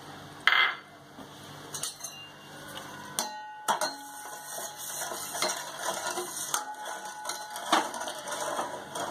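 A steel spoon stirring and scraping against the inside of a steel pot of sugar and water with orange food colour, mixing sugar syrup: irregular clinks and scrapes that start about four seconds in. A sharp knock comes about half a second in.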